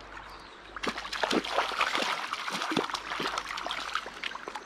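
Water splashing in quick, irregular splashes that start about a second in, over the steady run of a small river: a hooked brown trout thrashing at the surface as it is drawn in to be landed.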